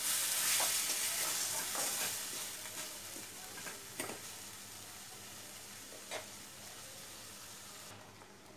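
Grated raw mango and jaggery sizzling in a stainless steel wok as a spatula stirs them, with a few light knocks of the spatula against the pan. The sizzle fades to a faint hiss over the last few seconds.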